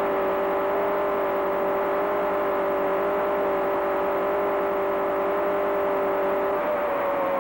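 Ford 427 V8 racing engine running hard at steady speed on a test dynamometer, with a steady whine over the engine noise. Near the end one tone drops out and the pitch begins to fall slowly as the engine speed eases.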